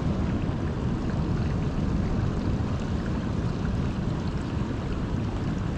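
Steady noise of wind and surf, even throughout, with no distinct knocks or calls standing out.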